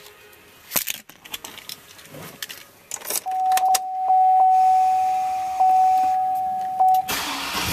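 Keys jingle and click at the ignition of a 2003 Chevrolet Avalanche, then a steady high-pitched warning chime sounds with the key on. Near the end the starter cranks briefly and the 5.3-litre V8 catches and starts to idle.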